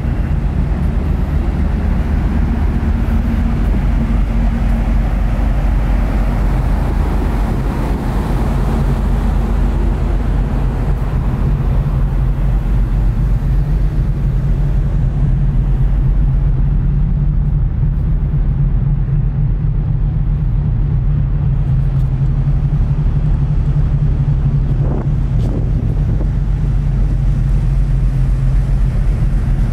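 A ferry's engines drone with a steady low hum, felt on the open deck, while wind rushes over the microphone, stronger in the first half.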